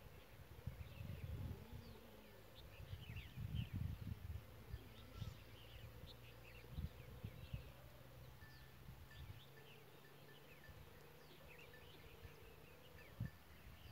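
Faint rural outdoor ambience: scattered short high chirps over gusty low rumbling of wind on the microphone.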